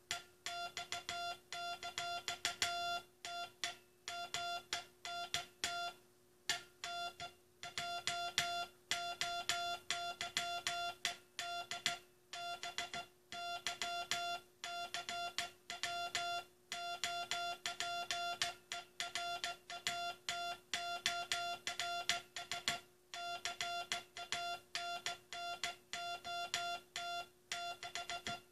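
Morse code (CW) keyed by hand: a single mid-pitched beep tone switching on and off in short dots and longer dashes, with brief pauses between letters and words. A faint steady hum sits underneath.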